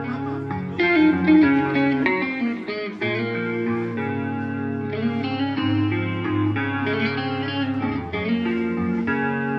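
Live metal band playing, led by electric guitars ringing out slow, sustained melodic notes over held bass notes.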